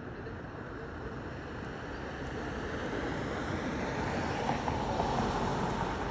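Steady street traffic noise, swelling louder from about halfway through, as of a vehicle going by.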